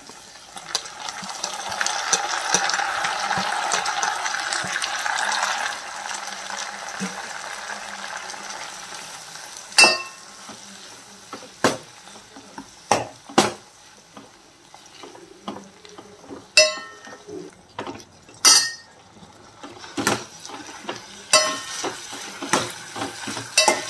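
Chopped tomatoes hitting hot oil in a stainless steel pot sizzle hard for about five seconds, then the frying settles to a lower hiss. A steel ladle stirs the mix, clinking and scraping against the pot many times.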